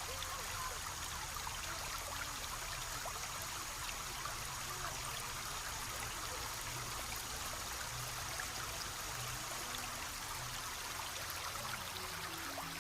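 A small stream trickling steadily, with scattered light drips and splashes in the flow.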